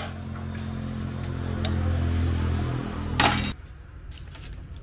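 Workshop air compressor running with a steady low hum, then a short loud blast of air about three seconds in, after which the hum stops.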